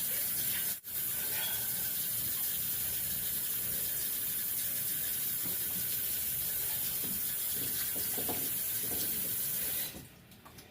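Water running steadily from a tap into a bathroom sink while hands rub soap into a lather. The sound breaks off for an instant about a second in, and the water stops near the end.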